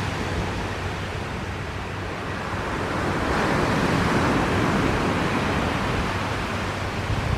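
Steady wind and sea-surf noise, swelling somewhat in the middle.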